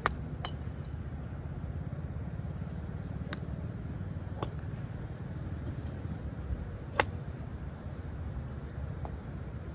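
Golf iron striking a ball off turf with a sharp click about seven seconds in, the loudest sound here. Several fainter clicks come before and after it, over a steady low rumble.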